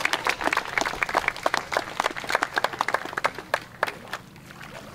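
Congregation applauding: many hands clapping, the clapping thinning and dying away about four seconds in.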